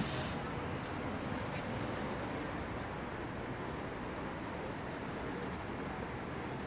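Steady street background noise with a small bird chirping over it: short, arched high notes about three a second for the first few seconds. A brief hiss comes right at the start.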